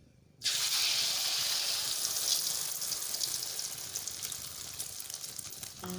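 Food frying in hot oil. A loud, crackling sizzle starts suddenly about half a second in, then slowly dies down.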